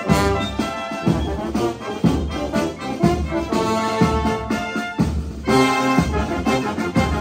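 Military brass band playing a dobrado march: trumpets, trombones and tuba over a steady drum beat, with a brief break in the low brass about five seconds in.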